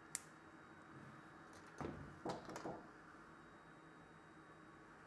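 Small tools handled on a repair bench: a sharp light click near the start, then a few short knocks and scrapes about two seconds in, over a faint steady hum.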